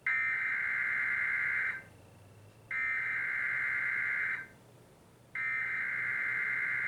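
Emergency Alert System SAME header: three bursts of two-tone digital data, each about a second and a half long with a short pause between them. This is the encoded header that opens an EAS Required Weekly Test.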